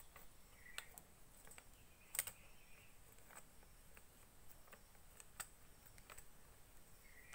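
Faint, scattered plastic clicks and handling noise from a selfie stick's phone clamp being worked by hand, with one sharper click about two seconds in.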